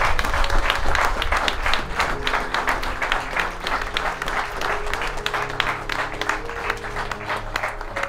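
A crowd of guests applauding, many hands clapping densely, with music playing held notes underneath.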